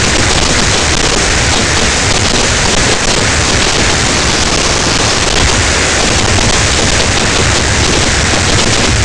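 Fireworks firing at very close range: a loud, unbroken barrage of crackling and bangs as fountains and shots spray sparks around the microphone.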